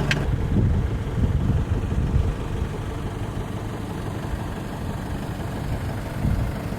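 Four-wheel drive running, a steady low rumble of engine and road noise with some uneven swells.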